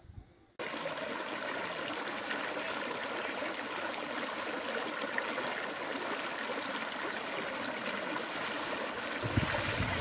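Shallow stream water rushing and gurgling over a half-buried tyre and debris, a steady watery noise that starts suddenly just after the beginning. Near the end, low splashes of someone wading through the water.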